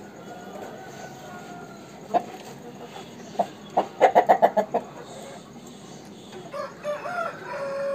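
Aseel rooster clucking: a few single clucks, then a quick run of about eight clucks around four seconds in. Near the end a rooster begins to crow.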